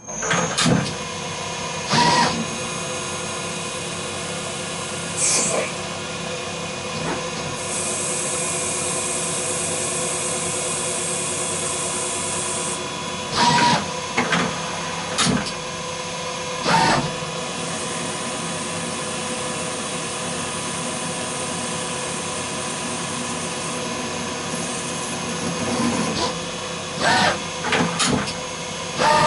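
EMCO E-25-TCM CNC turning lathe running a turning cycle: a steady machine hum with several fixed tones from the spinning spindle and the cut. About a dozen short, loud bursts break in, clustered around two seconds, fourteen to seventeen seconds and twenty-six to twenty-nine seconds in. A high hiss is added for about five seconds from roughly eight seconds in.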